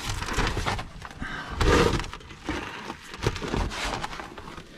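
Irregular scraping, crunching and knocks from someone shifting on a plywood sheet over gravel while crawling under a trailer, mixed with the camera being handled. The loudest rustle comes a little under two seconds in.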